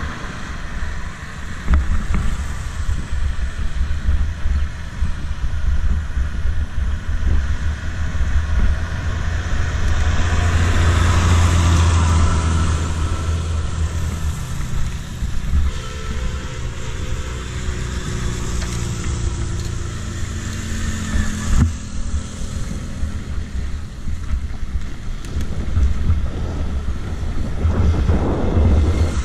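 Wind rushing over the microphone of a camera riding along on a bicycle, with motor traffic around it. The traffic swells loudest about a third of the way through, and there is a single sharp knock about two-thirds through.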